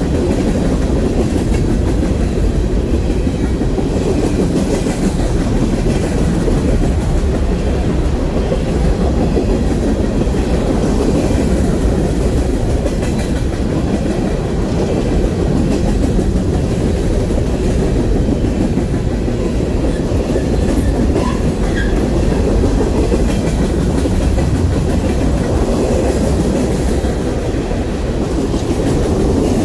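Norfolk Southern freight coal cars rolling past at close range: a steady, loud rumble of steel wheels on the rails.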